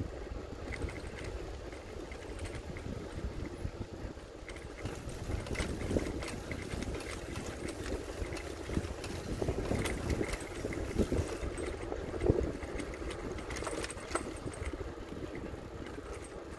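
A bicycle being ridden: steady rolling noise from the tyres on the path, with scattered light rattles and clicks from the bike.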